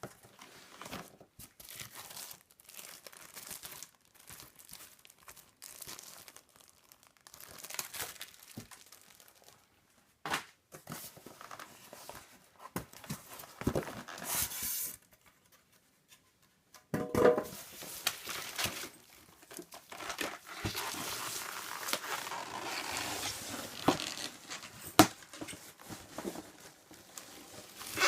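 Product packaging being unwrapped by hand: crinkling and tearing of plastic and paper wrapping, with scattered sharp clicks and knocks. The crinkling stops briefly just past the middle, then grows denser and more continuous.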